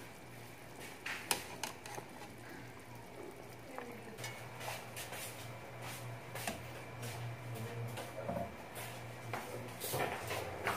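Metal kitchen tongs clinking and knocking against an aluminium stockpot while slabs of boiled pork belly are lifted out of the broth, the clicks coming more often near the end. A steady low hum runs underneath.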